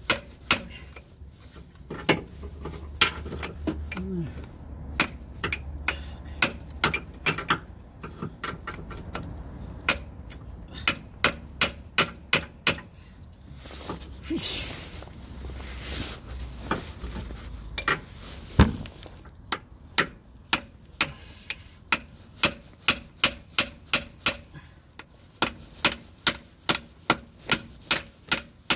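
Hammer blows on a steel bar or chisel set against a car's front drive shaft at the gearbox, knocking to drive the stuck shaft out past its retainer clip. The strikes are irregular at first, then settle into a steady run of about two blows a second in the second half.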